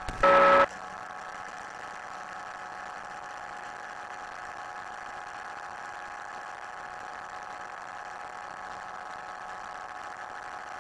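Rotax 582 two-stroke engine of a Chinook Plus 2 ultralight running at full takeoff power through the takeoff run and climb, a steady drone of unchanging pitch. A brief loud tonal sound cuts off about half a second in.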